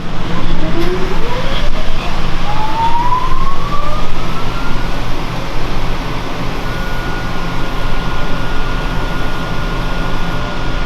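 Loud, steady machine noise with a low hum. Over it, a motor whine rises steadily in pitch for about four seconds, the sound of a motor spinning up, then holds at one high pitch.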